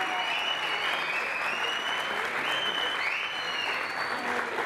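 Theatre audience applauding, with several long shrill cheers gliding up and held over the dense clapping.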